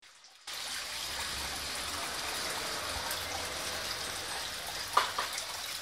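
A steady rushing noise, with one short, sharp sound about five seconds in.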